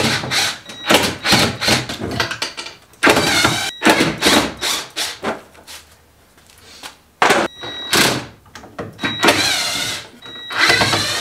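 Cordless drill running in several short bursts, its whine rising and falling in pitch, as the hinge screws are backed out to take the cabinet doors off. Between the bursts come knocks and clatter of the wooden doors and cabinet parts being handled.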